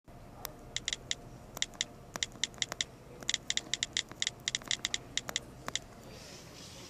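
Typing on a keyboard: a run of quick, irregular key clicks, sometimes several close together, which stop about six seconds in.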